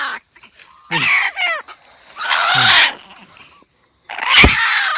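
Trapped red junglefowl squawking in three short loud bursts, with a sharp knock during the last one.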